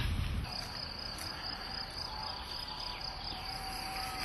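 A cricket trilling in one steady, high, unbroken tone that sets in about half a second in, after a brief click.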